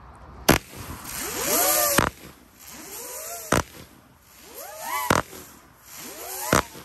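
Hummer firework cake firing its shots: a sharp bang about every second and a half, and between them the spinning hummer effects give a buzzing whine that rises and then falls in pitch.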